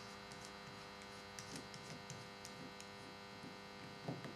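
Faint scattered clicks and rubbing of hands screwing a cap onto the end of a small tube, over a steady electrical hum. A louder handling rustle comes near the end.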